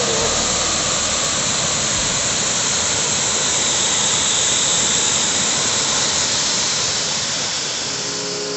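Waterfall: the steady, even noise of water falling and splashing, easing off near the end.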